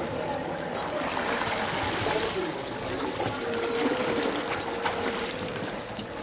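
Seawater washing and trickling among granite boulders around a shallow rock pool, a steady watery rush.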